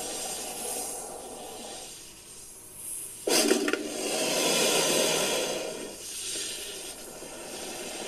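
Made-up creature sound effect for a fictional shelled snake, built from sounds credited to a titanoboa and crocodilians. It is a rough, breathy hissing that eases off, then breaks out loud and sudden about three seconds in, lasts roughly three seconds, and fades.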